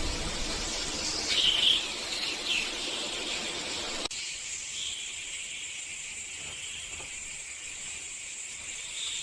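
Rainforest ambience: a steady high insect drone with a few short chirping calls. About four seconds in it changes abruptly, and the lower background drops out while the high drone carries on.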